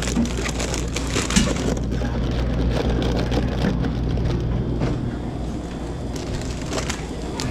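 Close rustling and crackling handling noise with scattered clicks, busiest in the first couple of seconds, over a steady low hum.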